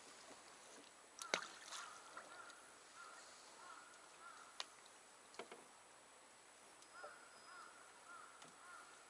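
Near silence aboard a small rowboat: a few faint, sharp knocks, the clearest about a second in, with soft chirps repeating.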